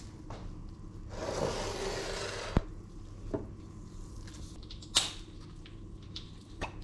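Kitchen handling noises as an olive oil bottle is picked up and its cap worked open: a rustle lasting about a second and a half, then a few sharp clicks and knocks, the loudest about five seconds in.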